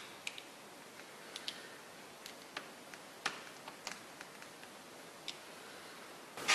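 Faint, irregular small clicks and taps, about a dozen, over a low steady hiss.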